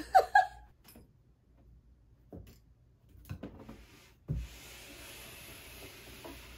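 Light knocks and rubbing of a tall white bookshelf being carried and manoeuvred, then a low thump a little after four seconds in, followed by a steady faint hiss.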